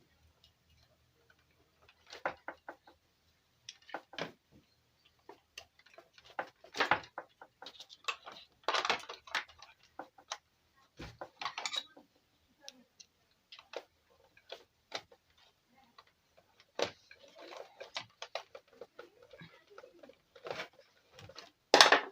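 Irregular clicks, taps and short runs of quick ticks from small hard parts and tools being handled on a keyboard's circuit board and casing, louder knocks near the end.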